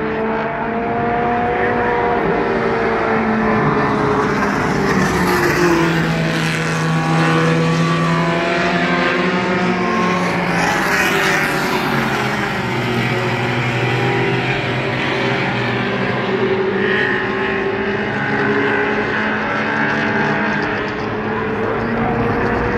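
Mini stock race cars' four-cylinder engines running at racing speed, several at once, their pitches rising and falling as they go around the track. A pair of cars passes close about eleven seconds in.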